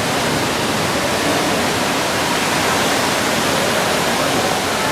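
Steady, loud rushing noise with no clear pattern or pitch.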